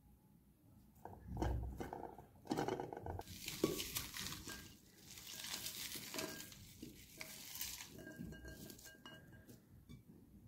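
Hands working sliced raw onion in a china bowl: irregular rustling of the onion pieces with a few light knocks against the bowl.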